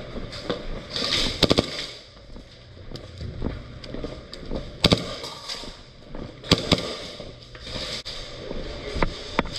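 Airsoft guns firing: sharp pops at irregular intervals, with a quick cluster of several about a second and a half in and single loud shots later.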